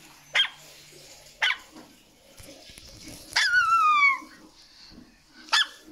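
A dog barking: single short barks, then a drawn-out yelp that falls in pitch lasting nearly a second, then another bark near the end.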